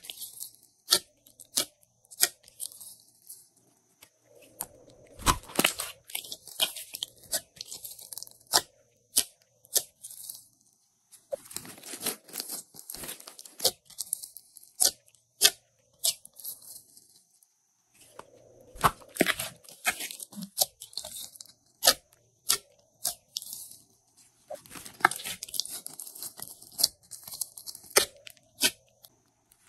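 Glossy slime being stretched, pulled apart and pressed by hand, making irregular sticky crackles and sharp pops in bursts, with short quiet pauses between handfuls.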